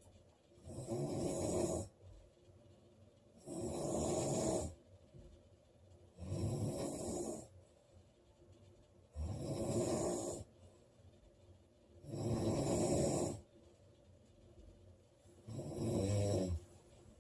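A woman snoring loudly in her sleep: six snores about three seconds apart, each lasting about a second, with quiet breaths between them.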